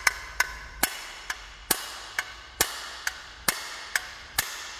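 Hammer blows at a steady pace, about two a second, on the end of a STIHL FS 220 brushcutter's crankshaft, driving the shaft out to split the crankcase halves.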